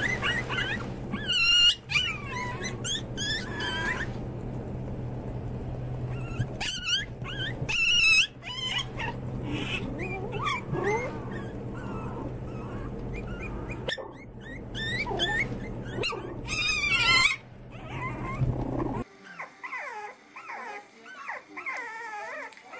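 A litter of Pomeranian puppies yipping and whimpering, many short high squeaky cries over a steady low hum. About 19 seconds in this gives way to French bulldog puppies whimpering and squeaking more softly.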